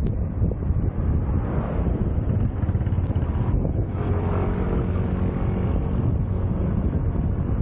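Wind buffeting the microphone of a camera on a moving bicycle, a steady low rumble. About four seconds in, a motorcycle engine is heard close by for a few seconds as it passes.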